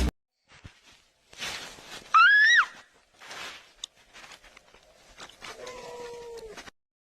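A domestic cat meowing once, a short loud call that rises then falls, about two seconds in.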